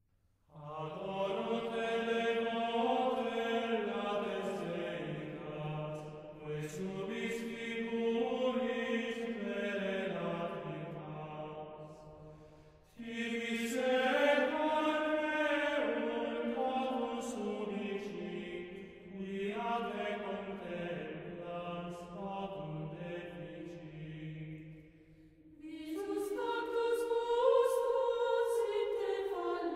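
Gregorian chant sung in long flowing phrases, with short pauses between them, beginning about half a second in.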